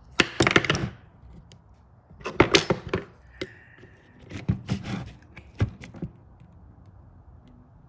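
Clicks, knocks and rattles of the plastic parts of an Echo CS-271 chainsaw being handled and worked loose in four bursts as the fuel and oil tank is pulled out, with a brief squeak about three and a half seconds in.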